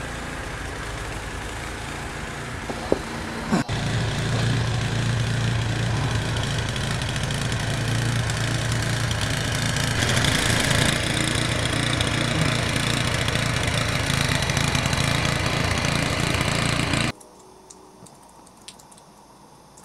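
An engine running steadily with a loud, even noise and a low hum, with a couple of short knocks about three seconds in. It stops abruptly near the end, leaving only quiet background.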